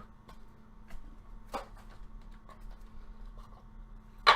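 Hands handling a trading-card box and its packaging: two sharp clicks or taps, about one and a half seconds in and near the end, with faint ticks between, over a steady low electrical hum.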